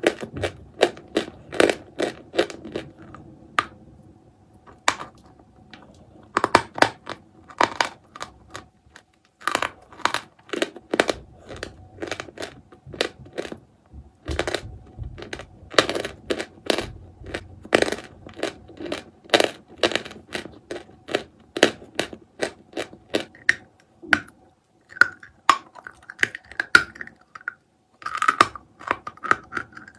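A block of pressed chalk being chewed close to the microphone: a steady run of sharp, dry crunches, two or three a second, broken by a couple of short pauses.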